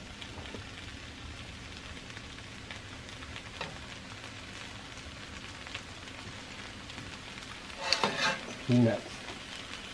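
Pad thai of rice noodles, chicken and vegetables sizzling steadily in a hot wok as it is stir-fried, with a metal spatula now and then clicking and scraping against the pan.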